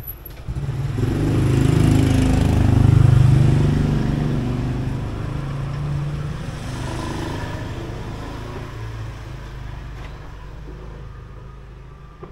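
A motor vehicle passing close by, its engine getting louder to a peak about three seconds in, then fading slowly away.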